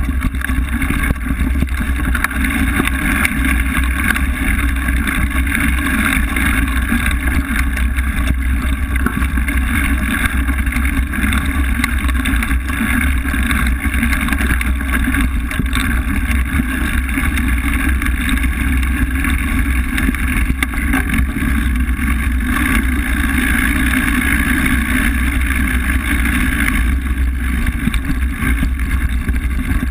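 Mountain bike riding along a dirt and leaf-covered forest trail, heard through a camera mounted on the bike as a steady loud rumble of tyre and frame vibration.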